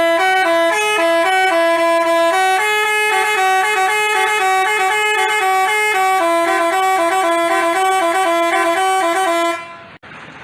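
Telolet basuri multi-tone musical bus horn playing a stepping melody, several notes sounding at once. It stops about nine and a half seconds in, leaving quieter noise.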